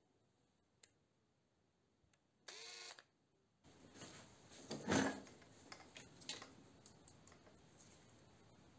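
Gloved hands handling cordless power tools and a steel jig on a workbench: a brief whir about two and a half seconds in, then rustling and handling noise with a sharp knock about five seconds in.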